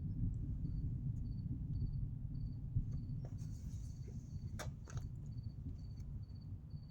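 A cricket chirping steadily, about two short chirps a second, over a steady low rumble, with a couple of sharp clicks about two-thirds of the way through.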